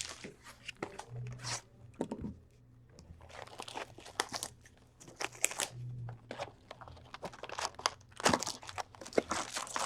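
Trading-card packaging being handled and opened: foil wrappers and cardboard crinkling and tearing in short, irregular bursts.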